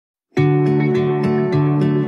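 Background music of plucked strings, starting abruptly a moment in, with a steady run of notes picked about three times a second over a held bass.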